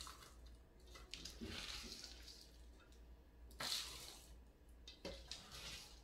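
Faint scooping and scraping of a damp bird seed mixture in a stainless steel bowl, with soft squishes and rustles; the loudest rustle comes a little past halfway.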